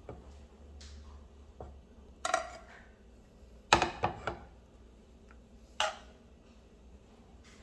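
Metal tongs clacking and scraping against a frying pan while picking up cooked chicken pieces: a few sharp clacks about two, four and six seconds in, the loudest a cluster near four seconds.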